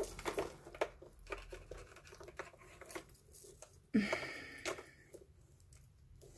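Faint rustling and scattered small clicks of hands rummaging through a box of tangled costume jewelry, with a slightly louder stretch of rustling about four seconds in.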